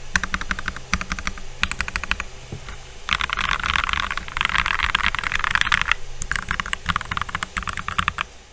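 Typing on a custom mechanical keyboard with lubed C3 Tangerine linear switches, a steady patter of keystrokes that turns into a fast, continuous run of key presses in the middle.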